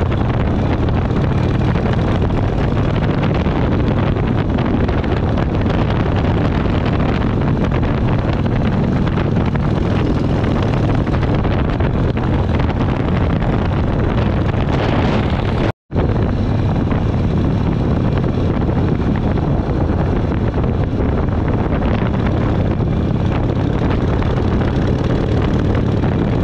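Harley-Davidson V-twin motorcycle engine running at road speed, mixed with heavy wind noise on the microphone. The sound drops out for an instant about two-thirds of the way through.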